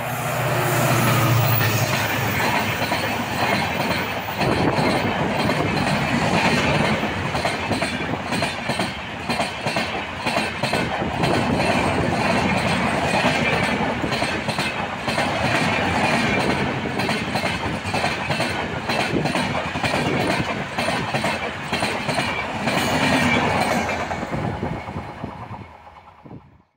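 Indian Railways WDG-4 diesel locomotive passing at speed, its engine running low and heavy for the first couple of seconds. A long rake of passenger coaches follows, rushing past with a steady roar and a rhythmic clickety-clack of wheels over the rail joints. The sound fades away near the end.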